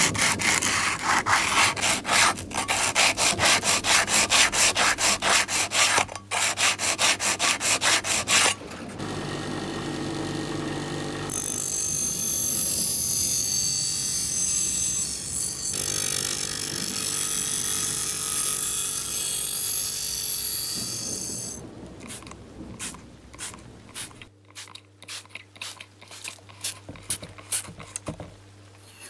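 Hand abrasive work on the knife: fast, even back-and-forth rubbing strokes of sandpaper or a file. After about eight seconds they give way to a steady rushing noise for around thirteen seconds. Slower, quieter strokes follow near the end.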